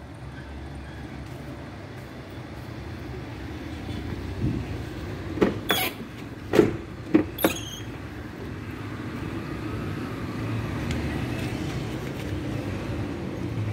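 Volkswagen Polo's front passenger door being opened: a quick run of sharp clicks and knocks from the handle and latch midway through, over a steady low traffic rumble.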